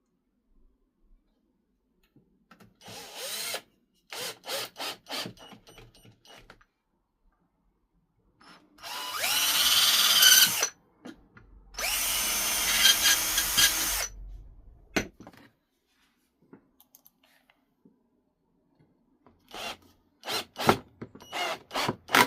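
Power drill worked on wood in short trigger bursts, then two longer, louder runs of about two seconds each, and more short bursts near the end.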